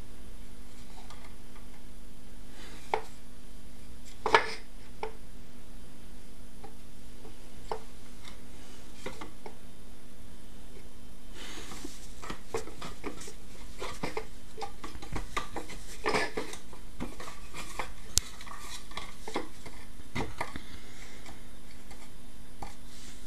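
Scattered taps, clicks and scrapes of a cat's claws and a person's hand against a wooden chair and stool as the cat swats at the hand. There is one sharp knock about four seconds in, and the scuffling gets busier from about halfway.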